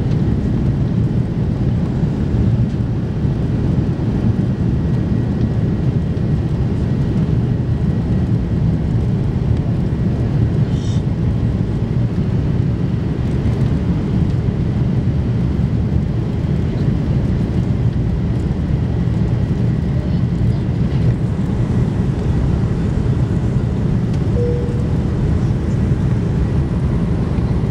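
Airbus A330-200 cabin noise from a window seat over the wing during takeoff and initial climb: a steady, loud, low rumble of the jet engines and rushing air.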